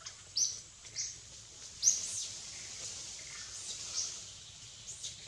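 A few short, high-pitched animal chirps, the loudest about two seconds in, over a faint steady background.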